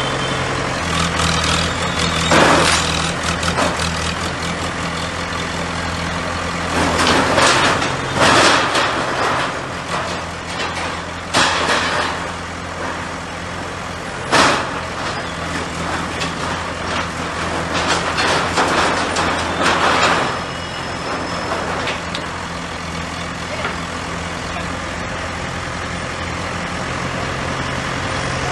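JCB backhoe loader's diesel engine running steadily while its bucket tears down a stall, with several crashes of sheet metal and debris.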